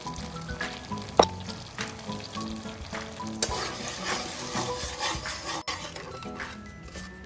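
Sauce sizzling in a metal wok on low heat while a metal spatula stirs and scrapes it, with a sharp clink about a second in. Light background music plays underneath.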